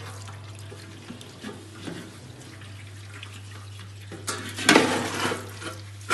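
Tap water splashing into a kitchen sink, loudest for about a second starting some four seconds in, after a stretch of faint cloth-wiping on a baking tray. A low steady hum runs underneath.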